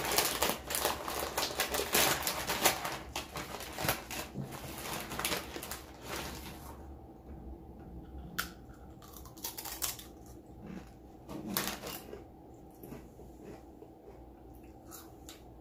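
Crunching on ghost pepper tortilla chips close to the microphone: dense, crackly crunching for about seven seconds, then quieter, scattered chewing clicks.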